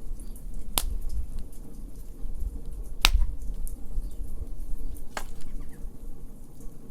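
Wood fire crackling, with three sharp pops standing out: about a second in, around three seconds in, and just after five seconds. Many smaller ticks run between them over a low rumble.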